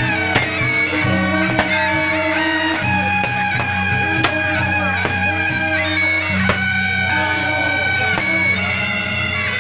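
Loud music with a steady bass line and a melody of held notes, cut through by four sharp pops.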